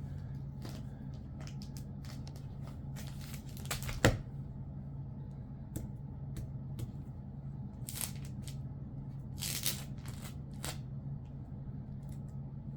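Comic books being handled and flipped through: intermittent rustling and crinkling of paper and plastic sleeves, with a sharp knock about four seconds in, over a steady low hum.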